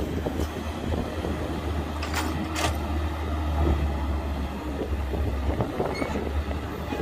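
Diesel engine of heavy earthmoving machinery running steadily with a low rumble, with two sharp knocks about half a second apart a little over two seconds in.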